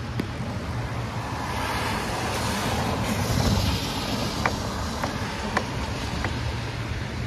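Traffic on a rain-soaked city street: a steady hiss of tyres on wet pavement that swells about three seconds in, with a few faint short high ticks in the second half.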